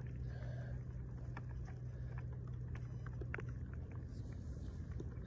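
Steady low rumble with scattered small clicks, and faint breaths coming and going: the slow, controlled breathing of the Tensho karate kata.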